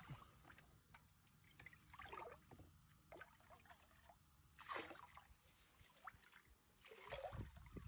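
Faint water sloshing and trickling in a shallow tub as a toddler and a goat stand and shift about in it, with a louder slosh about five seconds in.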